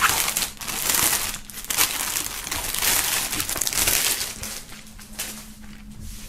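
Clear plastic bag crinkling in bursts as a folded jersey is pulled out of it by hand. The rustling dies down over the last two seconds.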